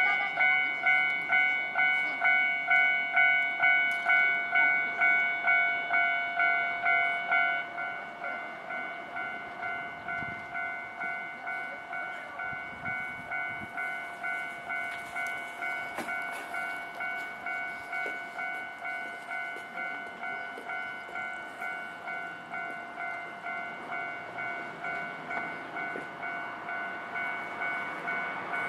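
Level crossing warning alarm on the Hankai Tramway line ringing in a steady ding-ding rhythm, about two rings a second. About seven seconds in it drops in loudness and its highest tones stop, and it keeps ringing more quietly.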